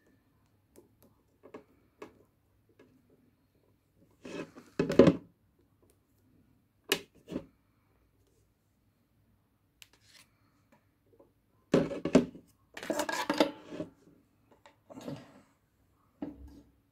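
Objects being handled: scattered clicks, knocks and rubbing, with two longer, louder clusters of rattling about four seconds in and again about twelve seconds in.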